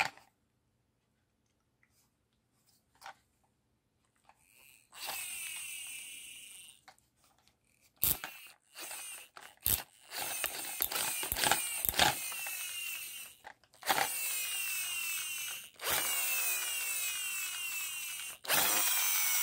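Toy car's friction flywheel motor spun up by hand several times, after a few faint clicks. Each run starts with a burst of whirring and buzzing and winds down with a falling pitch. The buzz comes from a small plastic piece rattling on the flywheel, a built-in engine-noise maker.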